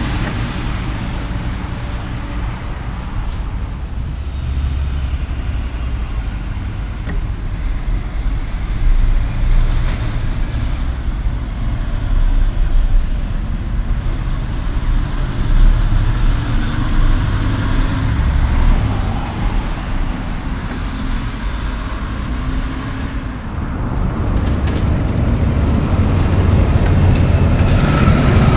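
Big-rig tractor-trailer trucks driving past one after another, their diesel engines running along with tyre and road noise. The sound swells and fades as each truck goes by, growing louder again near the end as another rig approaches.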